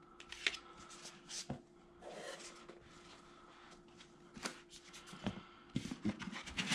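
Hands unpacking drone accessories, handling plastic batteries and packaging: a scatter of light clicks and rustles, with a short rustle about two seconds in and a cluster of clicks near the end.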